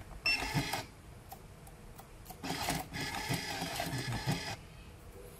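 ZCUT-10 automatic rotary-disc tape dispenser running: a short whir about a quarter second in, then a longer whir of about two seconds from halfway through, as it feeds and cuts tape pieces onto the turning disc. It then stops, halted by its sensor eye.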